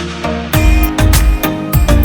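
Background music with a steady beat, bass and a plucked guitar-like melody.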